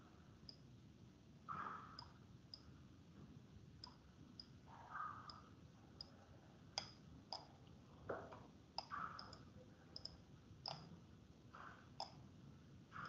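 Near silence broken by faint, irregular clicks of a computer mouse as lines are drawn on screen.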